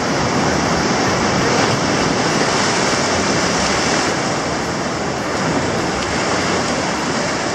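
Ocean surf: small waves washing in over shallow water against a rocky shore, a steady rushing noise.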